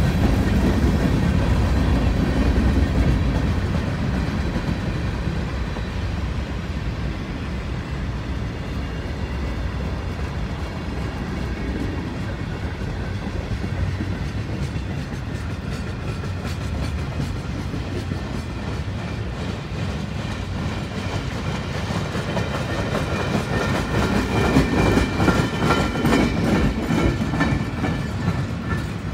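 BNSF manifest freight cars rolling past: a steady low rumble of steel wheels on rail, louder at the start and again near the end, when a thin high metallic ringing and clicking come in.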